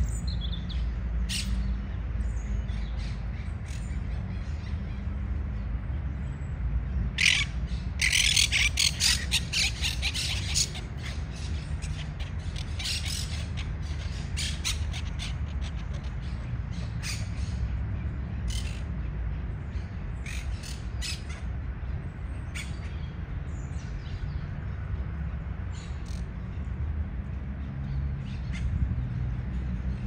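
Flock of monk parakeets giving harsh, scratchy squawks, scattered throughout, with a dense burst of chatter about seven to ten seconds in. A steady low rumble runs underneath.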